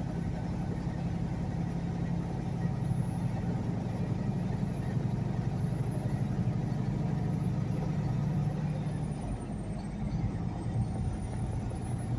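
Semi truck's diesel engine running steadily under road noise, heard inside the cab while driving on the highway. The engine note eases off about nine seconds in, then picks back up.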